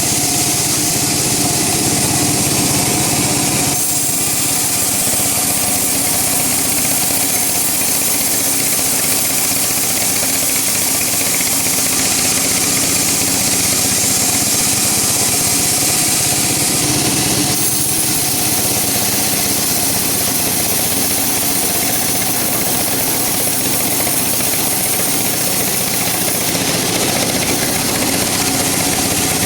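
Woodworking machinery in a teak flooring mill running steadily, a constant machine hum with a dense high hiss whose character shifts a few times.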